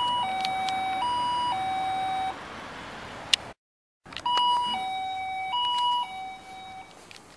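Electronic two-tone alarm sounding a steady high-low pattern, the two tones swapping about every half-second. It breaks off briefly about halfway, then resumes for a few more cycles and fades near the end.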